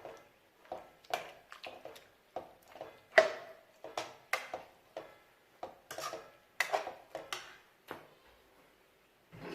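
Metal cooking utensils knocking and clinking against a pot, a series of short, irregular strikes, several a second, some ringing briefly.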